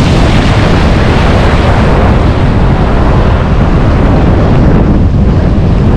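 Shore-break waves and foam washing over a camera held low in the shallows: a loud, steady, rumbling rush of water.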